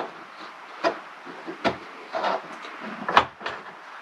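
A few sharp plastic clicks and knocks as hands handle and fit the terminal cover on a solar charge controller's housing, with a brief rub in the middle.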